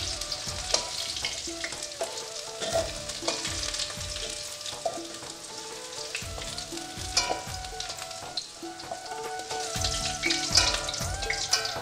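Potato wedges frying in hot mustard oil in an aluminium kadai, sizzling steadily, with a metal spatula scraping and clicking against the pan as the wedges are lifted out.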